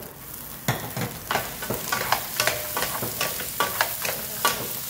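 Vienna sausages and sliced garlic sizzling in oil in a nonstick wok while two wooden spatulas toss them, with irregular clacks and scrapes of wood against the pan. The sizzle and stirring pick up under a second in.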